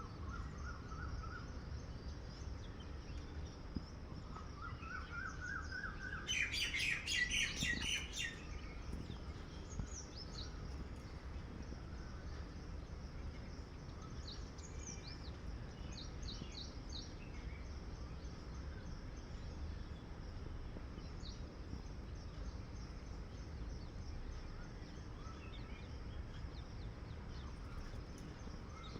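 Small birds chirping on and off, with a louder, rapid run of repeated chirps that climbs in pitch about six seconds in and lasts some two seconds, over a steady low background rumble.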